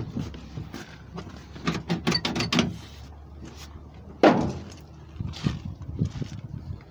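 The door of a 1981 GMC pickup clicking and rattling, then shut with a single loud bang about four seconds in, followed by a few lighter knocks.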